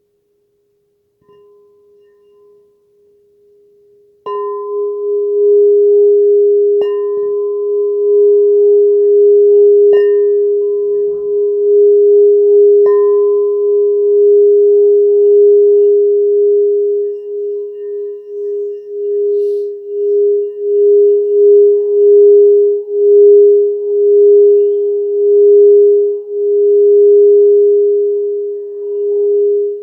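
Crystal singing bowl sounding one steady low tone. It starts faint, jumps louder with a strike about four seconds in, and is struck three more times about three seconds apart. From about halfway the held tone swells and fades in a regular pulse.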